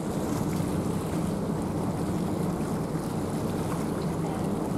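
Harbour cruise boat under way: a steady low engine hum with water and wind rushing past.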